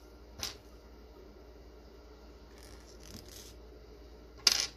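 Small handling sounds at a wooden tabletop as fine fly-tying scissors are picked up: a short sharp sound about half a second in, a soft rustle around the middle, and a louder sharp click or snip near the end.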